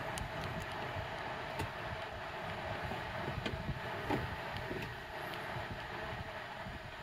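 Steady cabin hum and hiss inside a Toyota Prius standing still in Drive, with a few light clicks.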